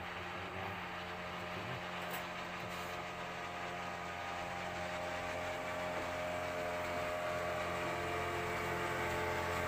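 An engine running steadily at one constant pitch, slowly growing louder.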